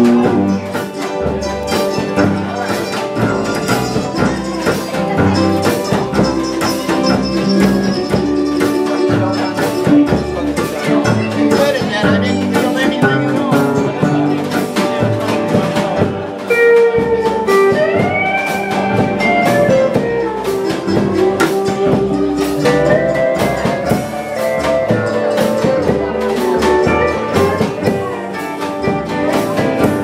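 Live country band playing an instrumental break: strummed acoustic guitar, upright bass and drums keeping a steady beat, with a pedal steel guitar sliding between notes in the second half.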